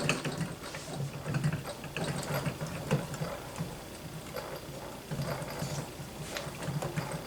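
Steel parts of a Barrett Model 95 .50 BMG rifle handled during reassembly, the barrel worked along the receiver's grooves: irregular scraping with scattered light clicks.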